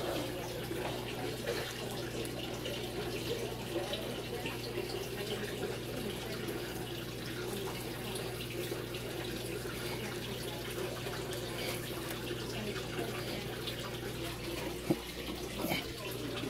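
Water running steadily into an aquaponics grow bed of clay pebbles, over a low steady hum. There is a brief knock near the end.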